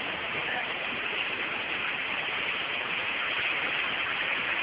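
Steady rushing of a shallow, rocky river, the water running over stones and small rapids.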